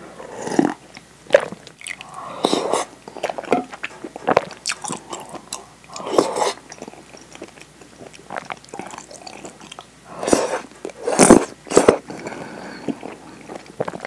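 Close-miked sipping and slurping of miso soup from a bowl, with chewing and swallowing between sips. The mouth sounds come irregularly, and the loudest, sharpest ones fall about ten to twelve seconds in.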